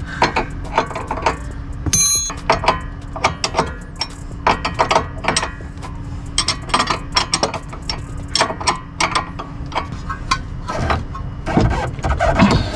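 Ratcheting wrench clicking in short, irregular runs as a bolt on a Honda Civic's front camber arm is worked during installation, with sharp metal clinks of the tool against the suspension.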